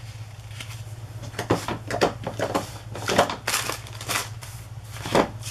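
Paper and cardstock rustling and sliding on a cutting mat as hands handle them, in short irregular strokes over a steady low hum.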